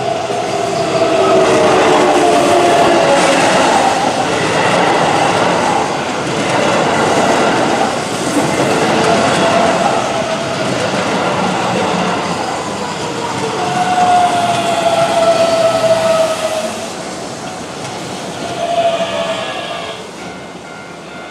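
Keihan 7200 series electric train running past close by and slowing, its wheels clattering on the rails. Its traction motors whine, falling in pitch several times as it brakes.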